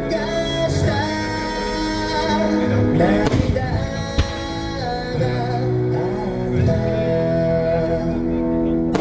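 Music with a singing voice and held instrumental notes, and a single sharp crack about four seconds in.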